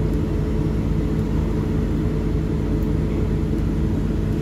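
Bus engine running steadily, a low hum with a few steady tones, heard from inside the passenger cabin.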